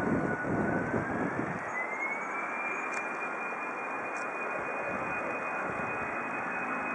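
Airbus A319-100 jet engines spooling up for takeoff: a rushing roar with a fan whine that rises in pitch about two seconds in, then holds steady.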